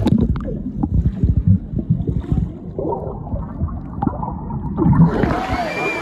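Muffled, heavy rush and gurgle of Dudhsagar waterfall's water, heard close up with the highs dulled, with many dull low knocks. Faint voices come through near the end.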